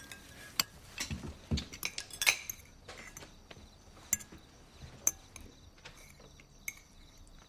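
Cutlery clinking on dinner plates: scattered light clinks and taps, with a couple of short low sounds about a second in.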